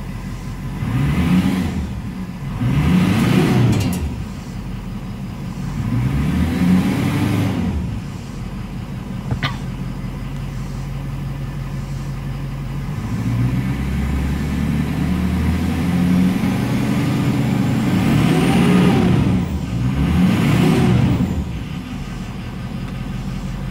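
A 2007 Ford F-350's 6.0L Power Stroke V8 turbo-diesel, heard from inside the cab, idling and revved briefly several times, each rev a rise and fall in engine pitch, with a longer rev held in the middle.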